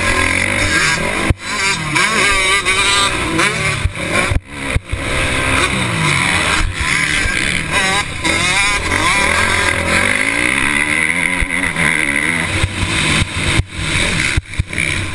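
Motocross bike engine on the track, heard from the rider's own onboard camera. It revs up and down over and over as the throttle is worked through jumps and turns, and drops out sharply for a moment three times.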